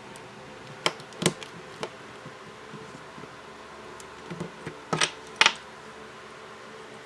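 Sharp clicks and crackles as a glued-on plastic phone back cover is pried loose and the adhesive underneath gives way: a few about a second in, a tighter cluster around five seconds. A steady faint hum runs underneath.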